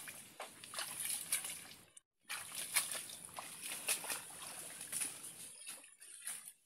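Footsteps through wet, leafy waterside plants, with leaves and stems rustling and crackling irregularly. The sound breaks off briefly about two seconds in.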